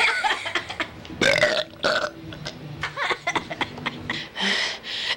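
Someone belching into the camera several times in a row, with a loud belch about a second in and a longer one near the end.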